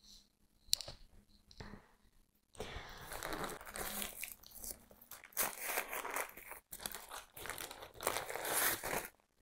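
Plant packaging being crinkled and pulled off a potted plant as it comes out of its shipping box: a few light clicks, then from about two and a half seconds in, some six seconds of continuous rustling and crackling that stops shortly before the end.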